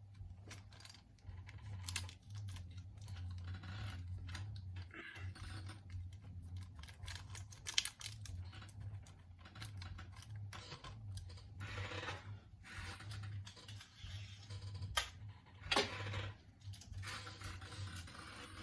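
Handling noise of Scotch tape being worked onto a window shade: scattered sharp clicks and crinkles, with a few longer rasps of tape pulled off the roll, over a low steady hum.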